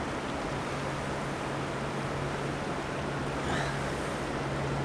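Steady rush of a shallow river flowing over cobbles, with a low even hum beneath it. A faint brief rustle comes about three and a half seconds in.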